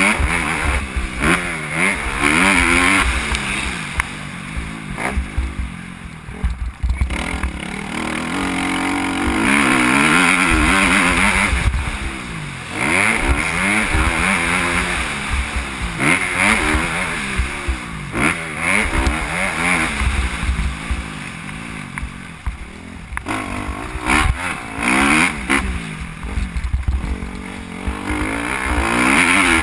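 Motocross bike engine revving hard and falling back again and again as it is ridden around a dirt track, its pitch rising and dropping with the throttle, heard from a helmet-mounted camera.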